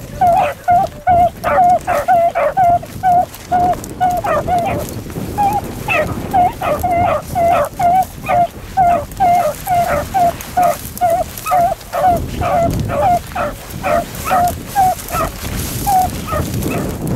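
Beagles baying on a rabbit's track: a steady run of short, high barks, about three a second, with a brief lull about five seconds in.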